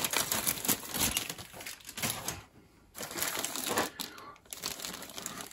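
Clear plastic bags crinkling and rustling as bagged sprues of plastic model kit parts are lifted and handled, with light clicks of the parts knocking together; a brief pause about halfway through.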